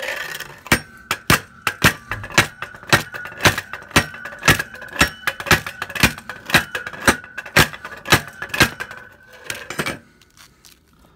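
Tines of a rusty metal rake jabbed down again and again onto a Samsung smartphone lying on concrete, to smash it: sharp strikes about two a second, some twenty in all, stopping about ten seconds in. A steady ringing tone runs under the strikes.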